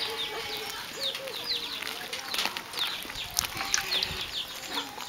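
Small birds chirping: short, high, falling chirps repeated several times a second.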